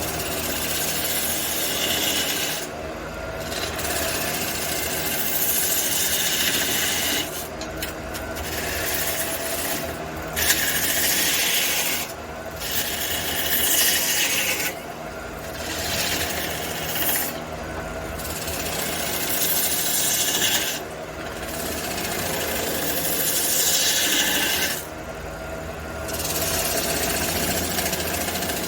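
Wood lathe running with a steady motor hum while a tool is worked against a spinning aromatic red cedar blank, giving a rasping hiss. The hiss comes in repeated passes that stop and start every second or two.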